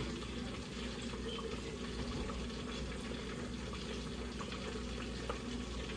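Battered flounder deep-frying in a pot of hot oil, frying steadily.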